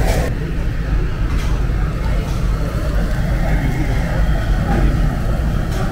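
Restaurant room noise: a steady low rumble with faint background voices.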